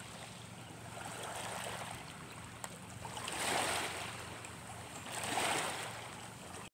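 Small sea waves washing in over a pebble-and-rock shore, swelling twice, about three and a half and five and a half seconds in.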